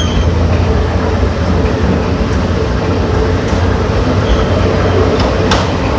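Diesel train heard from on board as it runs along the track: a steady loud rumble with a faint constant hum, and one sharp click about five and a half seconds in.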